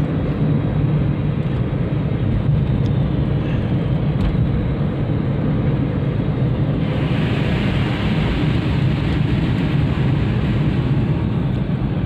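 Steady engine and road rumble of a moving Toyota car, heard from inside the cabin. A brighter hiss joins about seven seconds in.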